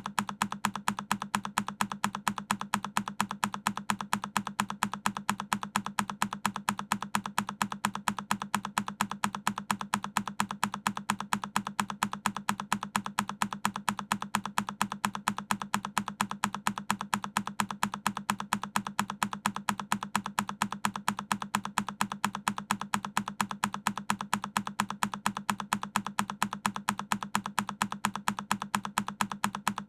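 A single key on a Keychron K10 mechanical keyboard pressed over and over, the same sharp click repeating at an even pace a few times a second.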